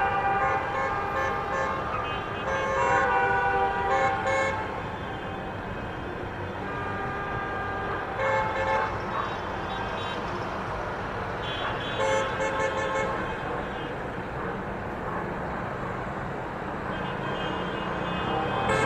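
Celebratory honking: several horns of different pitches tooting in overlapping held blasts, over a steady background din.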